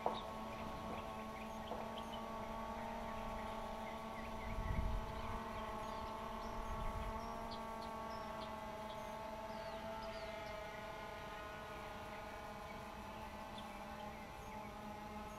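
DJI Phantom 2 Vision Plus quadcopter's motors and propellers whining in flight, several steady tones drifting slowly in pitch as the rotors adjust. Two short low rumbles come in around the middle.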